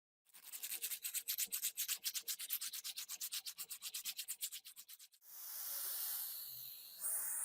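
Rusty metal part being scrubbed by hand with an abrasive, in fast, even back-and-forth strokes of about eight a second. About five seconds in, this gives way to a steadier hiss that grows a little louder near the end.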